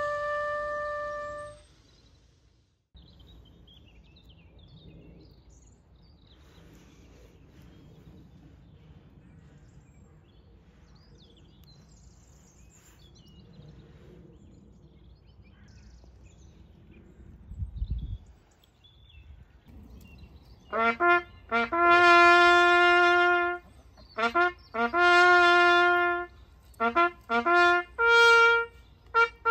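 A trumpet holds a long note that stops about a second and a half in, then a long pause of faint outdoor background with a brief low rumble. From about two-thirds of the way through, the trumpet plays a bugle call of short, quick notes and longer held ones.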